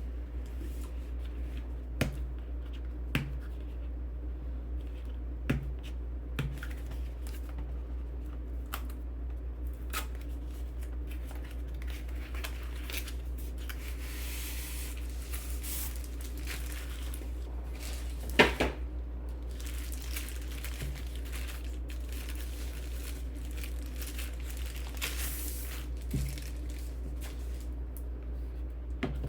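Packaging being handled during a keyboard unboxing: crinkling and tearing of wrapping, with scattered sharp clicks and knocks, one louder knock about two-thirds of the way through.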